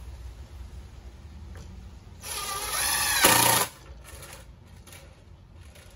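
Cordless drill driving a screw into wood: one burst of about a second and a half, the motor's whine rising as it spins up and getting louder in the last half-second.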